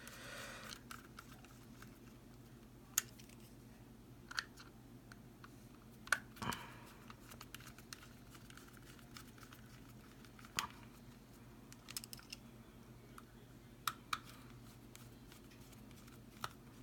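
Several faint, separate clicks and taps of a small plastic handheld remote, the freshly reassembled Enertion Nano-X skateboard remote, being handled, over a steady low hum.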